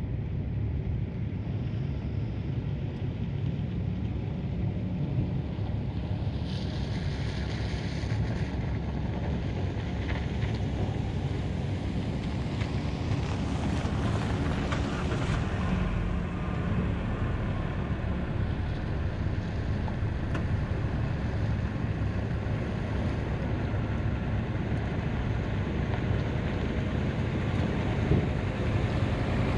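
Steady low engine rumble mixed with wind buffeting the microphone, with a pickup truck driving up close near the end.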